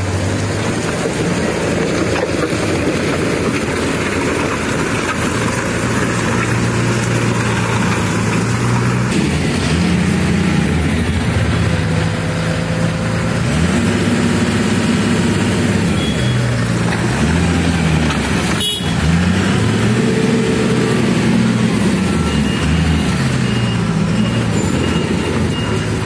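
Diesel engines of heavy road-building machines, a motor grader and a backhoe loader, running close by, the engine note stepping up and down as they work. A single sharp click about two-thirds of the way through.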